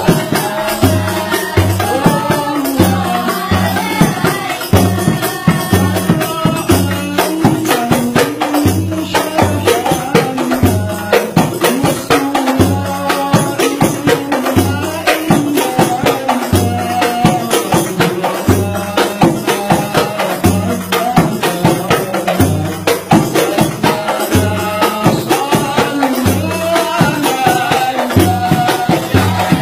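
Hadrah ensemble: several hand-struck frame drums, including a large bass frame drum, beating a quick interlocking rhythm of deep and sharp strokes under a man singing an Arabic shalawat melody into a microphone.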